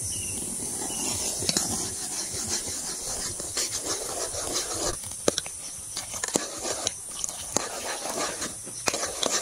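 Steel ladle stirring hot milk in an aluminium pot, clinking and scraping against the pot several times, more often in the second half, over a steady hiss. Custard-powder paste is being poured in and stirred, so the milk is starting to thicken into custard.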